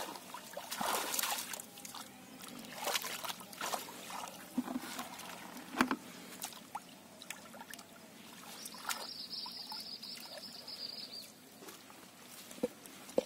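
Hands groping and sloshing in shallow muddy water, with irregular splashes and trickling as water is stirred and drips off the arms.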